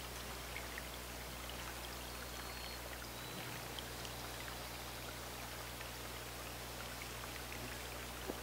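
Water running or falling steadily, with scattered small drips and splashes.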